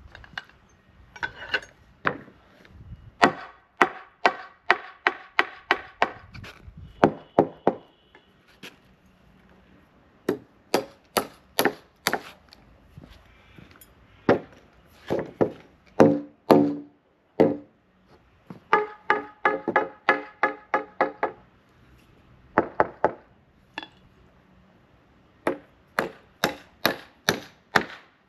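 Nails being driven by hand with a hammer into timber wall plates: runs of quick, sharp strikes, several a second, with short pauses between nails. Some runs carry a metallic ring from the nail.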